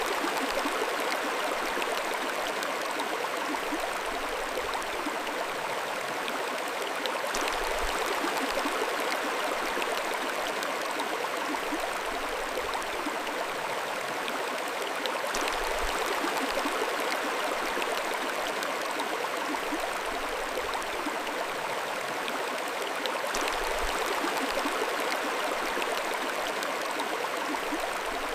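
Mountain stream flowing steadily, a continuous even rush of water over stones.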